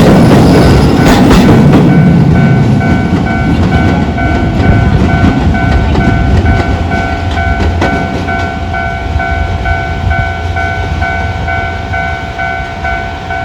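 An electric train runs past over the level crossing, wheels clicking over the rail joints, and fades away over the first few seconds. The crossing's electronic warning bell keeps ringing in a steady, evenly repeating ding-ding at its normal low-pitched setting, standing out clearly once the train noise falls away.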